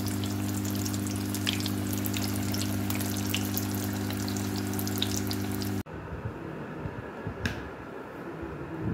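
Hot oil sizzling and crackling with many fine pops as chicken rolls deep-fry in a pot, over a steady low hum. About six seconds in, the sizzle and hum stop abruptly, leaving quieter faint noise with a single click.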